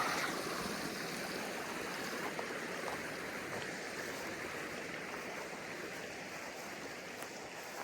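Creek water running steadily, a continuous rushing that grows gradually fainter.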